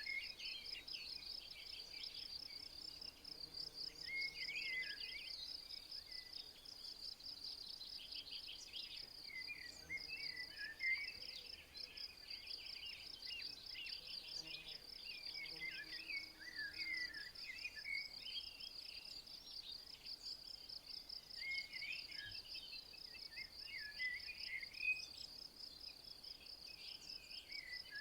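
An insect trilling steadily in a high, fast, even pulse, with small birds chirping on and off beneath it.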